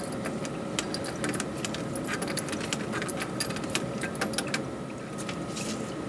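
A metal hand tool clicking and scraping on the brass fitting as the drip-tube adapter is unthreaded from a water heater's T&P relief valve: a quick, irregular run of metallic clicks over a steady background hum.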